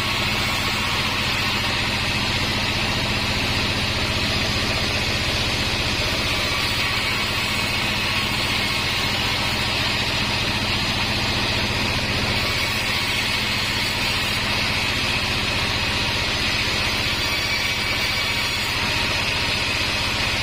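Sawmill bandsaw running steadily: a constant motor hum with a strong hiss higher up.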